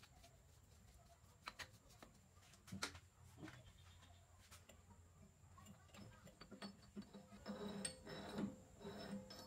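Mostly quiet, with a few faint clicks, then a short cluster of light metal taps and clinks near the end as a small steel bolt is handled and fitted into the slot of a steel plate.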